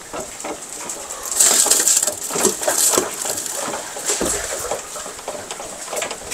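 Wet concrete tipped from a bucket into wooden wall formwork: gritty rushing and scraping as the mix slides down between the forms, with scattered knocks, loudest about a second and a half in.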